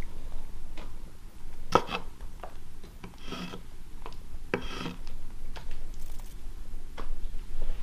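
A steel finishing trowel scraping and smoothing through wet self-levelling underlayment, in a few short strokes roughly a second and a half apart.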